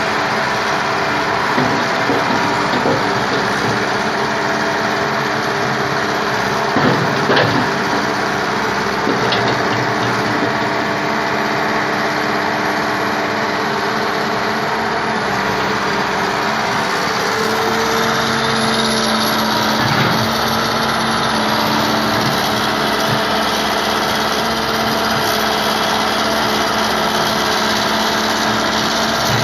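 Backhoe engine running steadily as it works, with a couple of brief knocks about seven seconds in and a steadier engine note settling in past the middle.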